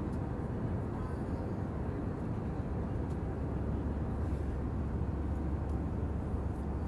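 Airliner cabin noise in flight: the steady low rumble of the jet engines and rushing air, heard from inside the cabin at a window seat.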